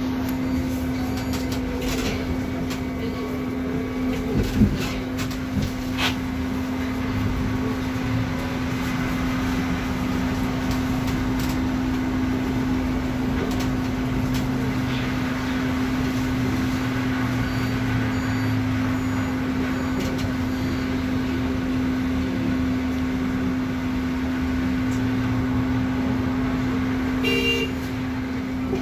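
Trolleybus interior ride noise: a steady hum from the electrical equipment over a shifting low drone as the trolleybus drives, with a few knocks from the body about five seconds in and a short beep near the end.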